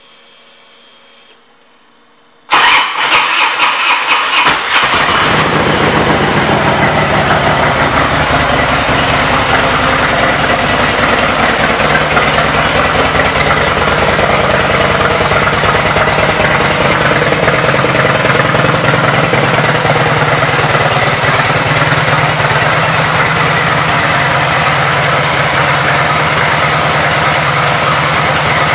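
2003 Harley-Davidson Ultra Classic Electra Glide's Twin Cam 88 V-twin, through a 2-into-1 Screamin' Eagle fishtail exhaust, started about two and a half seconds in: it catches with a few uneven pulses, then settles into a loud, steady idle.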